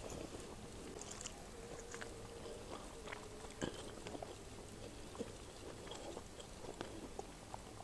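Quiet eating sounds: soft chewing with scattered small clicks of fingers and food against a plate.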